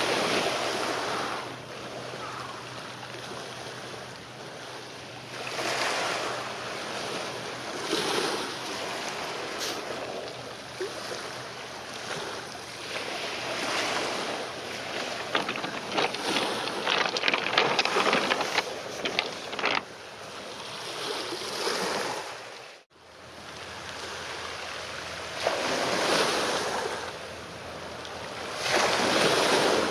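Waves washing on the shore, surging up every few seconds, with wind buffeting the microphone and a faint low steady hum underneath. The sound drops out for a moment a little over twenty seconds in, then the washing and wind go on.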